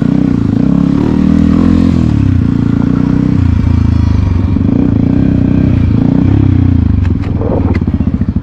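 Motorcycle engine running loud and close while the bike is ridden over a dirt track, its note rising and falling with the throttle and easing briefly about seven seconds in.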